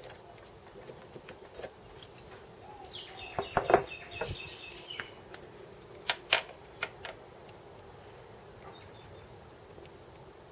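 A few sharp metal knocks and clinks, in a cluster about three and a half seconds in and a pair around six seconds, with a brief squealing tone over the first cluster.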